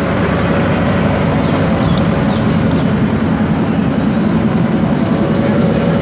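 Diesel engine of a stopped State Railway of Thailand train running at a steady idle close by: a loud, even rumble with a constant hum.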